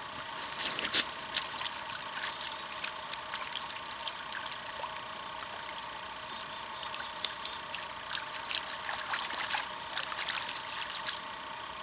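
Small splashes and trickling water at the river's edge as hands work in the shallows, landing a grayling. The splashes come in two busy spells, about a second in and again toward the end, over a steady background hiss.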